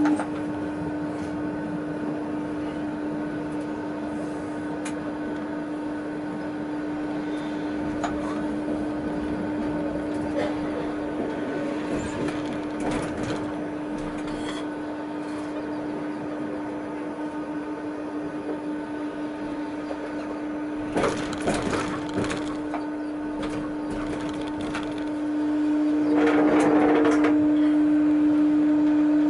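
Tatra T6A5 tram heard from the driver's cab: a steady electric hum over the running noise of the wheels on the rails, with a short run of clattering knocks about two thirds of the way in. Near the end the hum and running noise grow louder as the tram takes power and speeds up.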